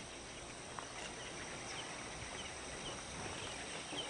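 Faint outdoor insect drone, a steady high buzzing, with small high chirps repeating about twice a second.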